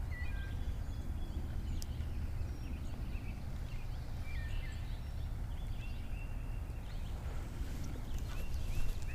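Outdoor pond ambience: scattered short bird calls over a steady low rumble, with a run of repeated chirps in the second half and a couple of faint clicks.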